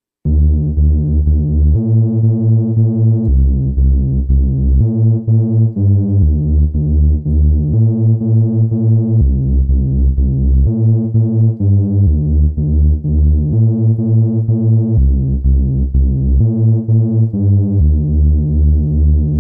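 Cherry Audio LowDown software bass synthesizer, an emulation of the Moog Taurus bass pedals, playing a line of deep bass notes on its Sinister Bass preset, one note straight after another.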